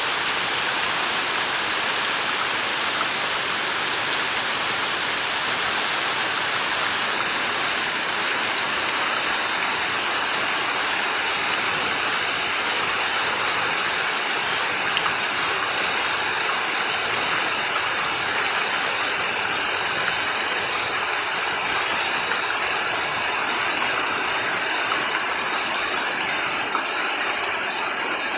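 Heavy rain pouring down on trees and ground: a loud, steady, dense hiss with a fine crackle of drops.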